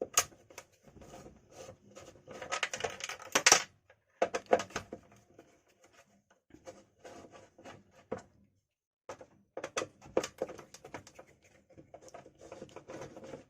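Screwdriver undoing the screws that hold a mixer grinder's motor, with scraping, clicks and light metal rattles as the screws and parts are handled, in irregular spells with a quiet pause about halfway through.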